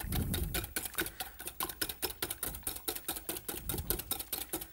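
Fork beating eggs and crème fraîche in a glass bowl, ticking against the glass in a rapid, even rhythm of several strokes a second.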